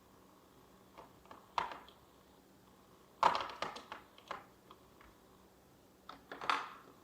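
Small plastic toy pieces being handled and set down, a scatter of light clicks and knocks, loudest just past the middle.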